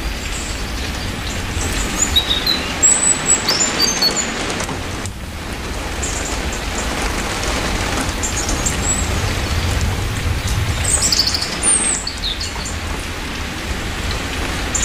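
Steady rain falling, with birds chirping in short high calls about two to four seconds in and again around eleven seconds in, over a low rumble.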